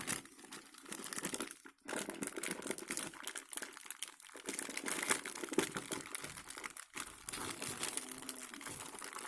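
A courier parcel's packaging being torn open and handled: continuous crinkling, rustling and tearing, with two brief pauses.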